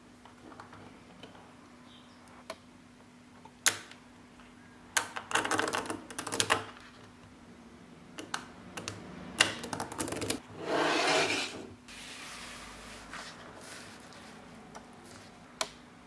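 Small neodymium magnetic balls clicking as strips of them are snapped together and stacked by hand. Single sharp snaps alternate with two quick flurries of clacking, about five and nine seconds in, followed by a brief rustling scrape.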